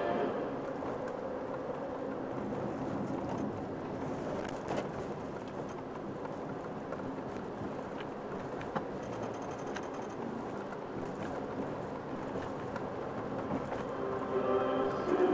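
Steady car interior noise while driving in slow traffic: a low, even engine and road rumble, with a couple of faint clicks. Music begins near the end.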